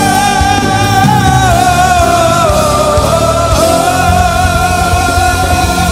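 Christian praise song played by a band: one long held lead note with vibrato rings over a steady full-band accompaniment.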